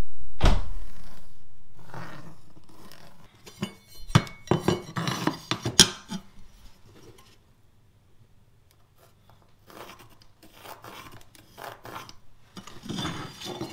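A metal square handled on vinyl flooring planks while a cut is measured out: a sharp metallic knock first, then a run of clinks, clicks and scrapes, then quiet.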